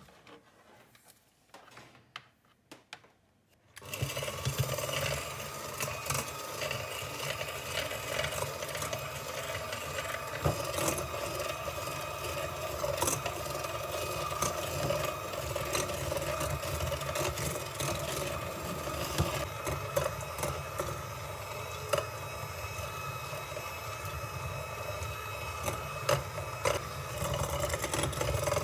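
Electric hand mixer switched on about four seconds in after a few light handling clicks, then running steadily as its beaters whip egg yolks and sugar in a glass bowl, with occasional sharp clicks.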